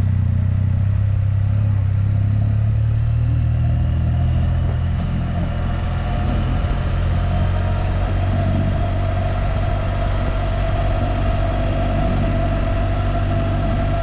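Can-Am Spyder three-wheeled motorcycle's engine running steadily at low speed as the trike moves off and rides along. There is a deep steady hum, and a higher steady whine comes in about halfway through.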